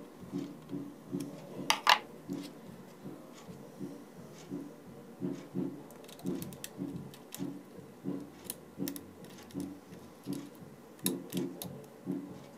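Small screwdriver clicking and tapping on the heatsink screws and metal of an open laptop as the heatsink is screwed back down, the sharpest click about two seconds in. Under it runs a soft, even knock about twice a second.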